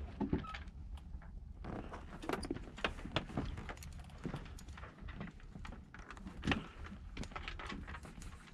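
Sailboat in calm water: irregular light knocks and taps from the hull and deck gear, several a second, over a low steady rumble.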